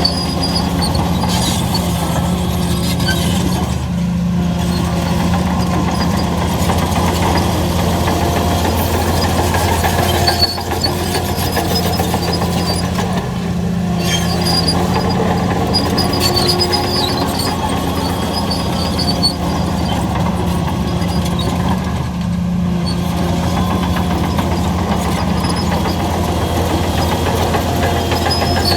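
A 25-ton Hyundai bulldozer's diesel engine running loud and continuous while working, its note dipping briefly several times.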